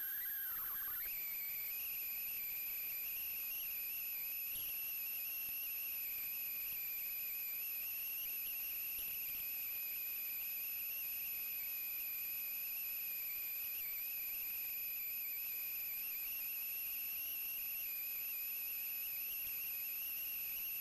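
A steady high-pitched whistling tone that jumps up in pitch about a second in, then holds level. No low engine sound is heard beneath it.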